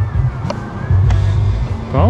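Background music with a pulsing bass line and a held high tone.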